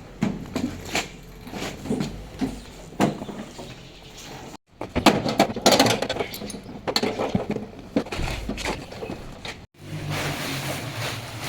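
Scattered knocks and rustling, as of things being handled, with a louder clattering stretch in the middle; after a cut near the end, a small engine hums steadily.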